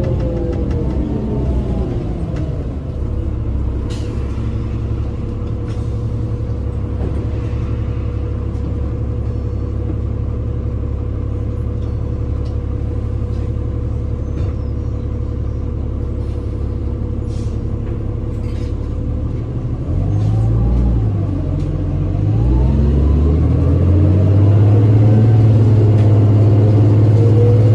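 City bus engine and drivetrain heard from inside the cabin: the pitch falls near the start, then the bus runs steadily with scattered small rattles and clicks. About 20 s in the engine pitch rises in steps through gear changes and the sound grows louder as the bus picks up speed.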